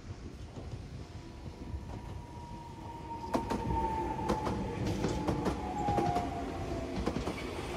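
Enoden (Enoshima Electric Railway) train passing close by, growing louder about three seconds in. Its wheels clack over the rail joints with a whine that slowly falls in pitch.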